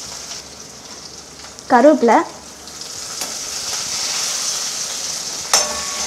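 Hot oil sizzling in a kadai over chopped green chillies, ginger and tempering spices. The sizzle grows louder about halfway through as curry leaves go into the oil, and a metal ladle clinks against the pan near the end.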